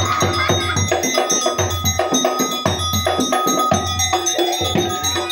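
Topeng monyet accompaniment music: a small metal gong struck in a quick, steady rhythm, its notes ringing over a low drum beat.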